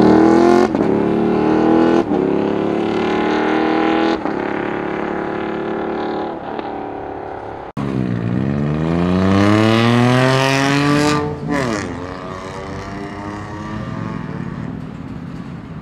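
A sportbike engine accelerating hard, its note climbing and breaking at each upshift. Then, after a sudden break, another engine revs up in one long rising sweep that cuts off about eleven seconds in, leaving a lower, steadier engine sound.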